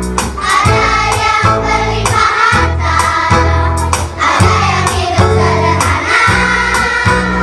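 A group of children singing a song together over accompanying music with a steady beat and bass line.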